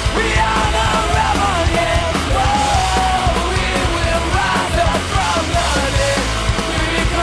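Rock music with shouted singing over a steady drum beat.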